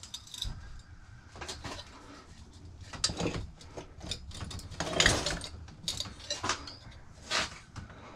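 Scattered knocks, clicks and rustles of hand tools and metal parts being handled, with a louder clatter about five seconds in and another about seven and a half seconds in.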